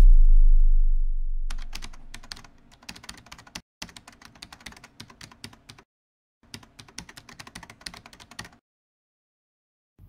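A deep rumble dying away over the first two seconds, then rapid computer-keyboard typing in three runs with short pauses, stopping about a second and a half before the end.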